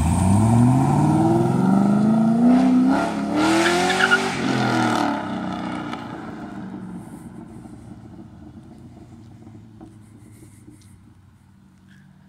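Chevrolet Corvette C6 Z51's V8 accelerating hard away, revs climbing, dropping at a gear change about three seconds in and climbing again. From about five seconds in it fades steadily into the distance.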